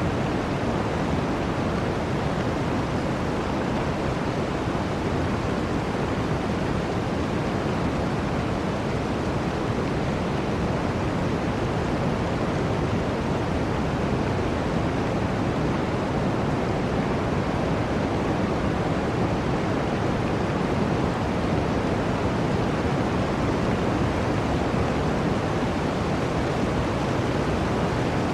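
Steady, even rush of flowing water, with no separate splashes or drops standing out.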